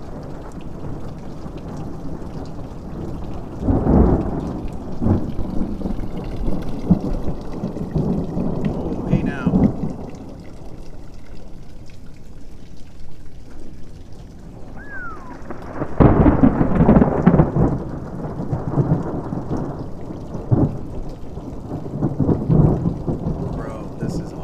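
Thunderstorm: rain falling steadily while thunder rolls, with two long low rumbles swelling up about four seconds in and again about sixteen seconds in.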